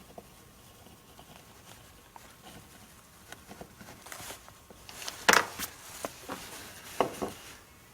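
A pronged leather stitching punch is struck to drive stitching holes through leather: a few sharp knocks, the loudest about five seconds in, with quieter clicks and handling of the tool and leather before them.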